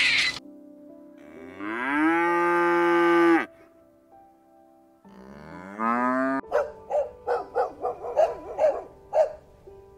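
Cow mooing twice, each moo rising in pitch and then holding before it cuts off. A quick run of about nine short animal calls follows in the second half.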